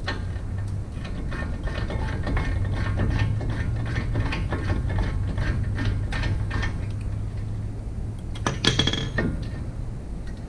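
Ratchet wrench clicking as it works a brake caliper hanger bolt, over a steady low hum, with a sharp metallic clink near the end.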